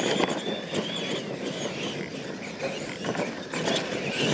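R/C monster trucks racing over a dirt track: a wavering, gliding motor and gear whine over tyre and dirt noise, with a few short knocks.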